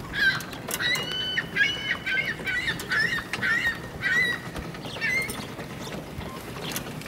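Birds calling: a rapid series of short, pitch-bending calls, about two a second, that stops about five seconds in.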